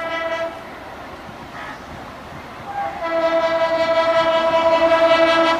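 Horn of a WDM3D Alco diesel locomotive sounding as the train runs through: a short blast at the start, then a long, louder blast from about three seconds in, over the noise of the moving train.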